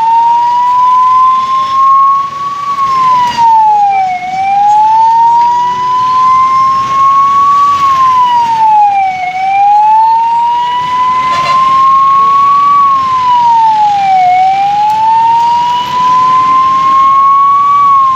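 Ambulance siren wailing in a slow cycle: the pitch rises over about four seconds, then drops quickly, repeating about every five seconds, with road traffic underneath.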